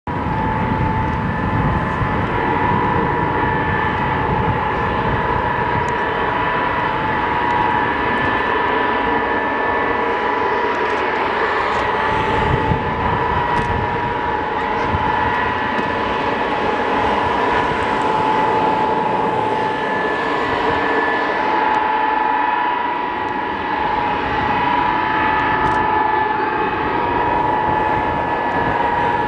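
Tupolev Tu-154M's Soloviev D-30KU-154 turbofans running at taxi power: a steady, high-pitched jet whine with a constant tone over the rush of the exhaust.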